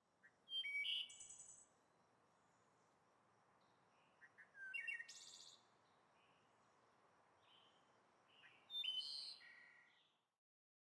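Birds chirping in three short bursts, about four seconds apart, over a faint steady background hiss.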